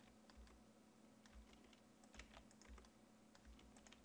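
Faint, scattered clicks of computer keyboard keys being pressed (Tab and G in Blender) over a low steady hum.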